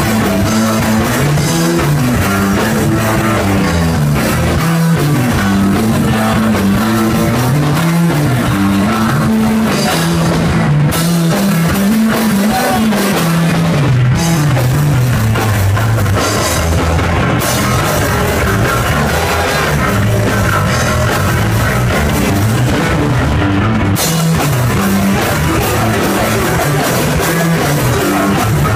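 Live rock band playing loud: drum kit and guitar over a bass line that steps up and down. The cymbal wash breaks off briefly several times.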